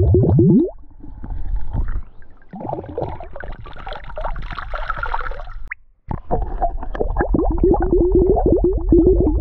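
Small glass flask filled underwater: rapid glugging as air bubbles out through its neck, rising in pitch and stopping about half a second in. From about two and a half seconds in, water poured out of the flask splashes onto the stream surface for about three seconds. From about six seconds in the flask is dunked again and the rapid glugging returns.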